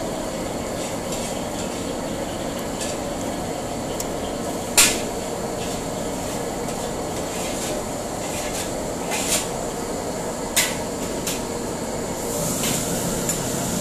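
Steady roar of a commercial kitchen's extraction hood and wok range, with sharp metallic clanks of a utensil striking a wok or pot, loudest about five seconds in and again twice a few seconds later. The noise swells near the end.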